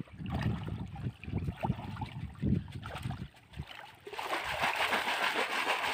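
Water moving and trickling among rocks, with irregular low rumbles in the first half, then a steady rushing hiss from about four seconds in.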